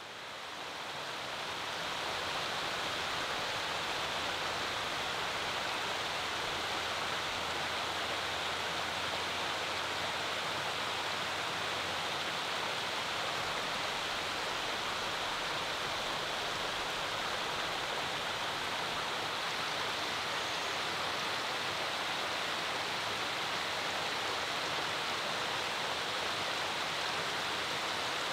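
Shallow creek running over rock ledges and small cascades: a steady rush of water that fades in over the first couple of seconds.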